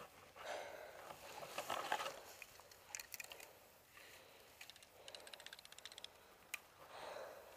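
Quiet rustling and crunching, with scattered clicks, as a player moves through brush. About five seconds in comes a fast, even rattle of clicks lasting roughly a second, which may be distant airsoft gunfire.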